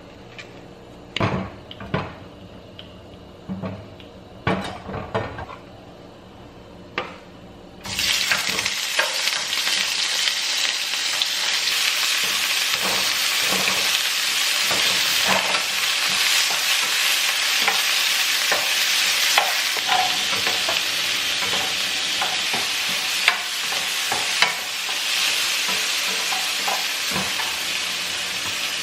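A few knocks and clicks of kitchen utensils, then about eight seconds in a steady sizzle of food frying in a hot pan starts suddenly, with scattered clinks of stirring.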